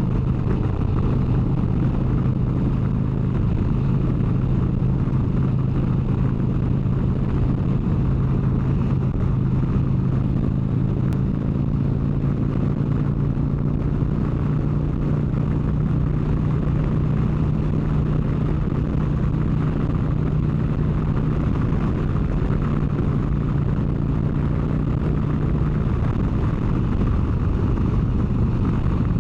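Harley-Davidson motorcycle's V-twin engine running steadily at highway cruising speed, with steady wind and road noise; the engine note shifts slightly near the end.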